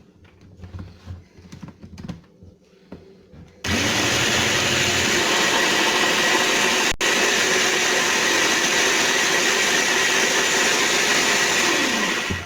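Small electric food processor chopping onion and garlic: after a few light clicks of handling it starts about a third of the way in and runs loud and steady, with a split-second break near the middle, then stops at the very end.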